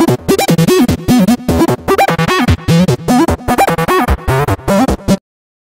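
Electronic channel-intro music with a fast, busy beat and synthesizer notes, cutting off abruptly about five seconds in.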